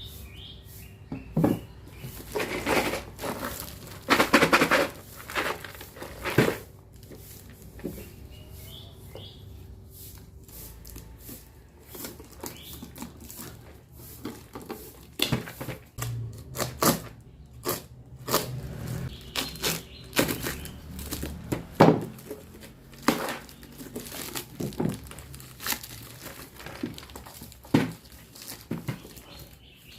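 Hands handling plastic marble run pieces: irregular crinkling and rustling of plastic with sharp clicks and knocks as parts are picked up and fitted together.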